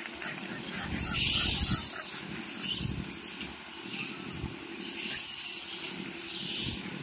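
Troop of rhesus macaques foraging in grain scattered on hard ground. Several bursts of hissing rustle come over a rough low rumble.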